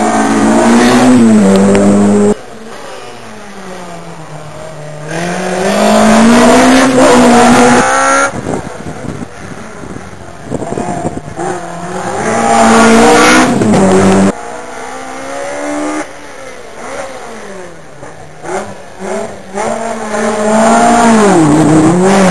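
Rally cars racing past one at a time, engines revving hard with the pitch falling and then climbing again. There are four loud passes, each cut off abruptly.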